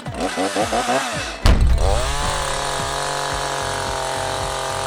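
Gas-powered Echo chainsaw: it blips its throttle at first, then about a second and a half in opens up to full throttle and holds a steady high-revving whine.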